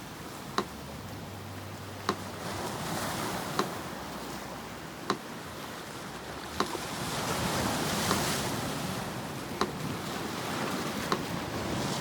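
Sea surf washing ashore, swelling to a louder wave about two-thirds of the way through, with a metronome ticking evenly over it, one sharp click every second and a half.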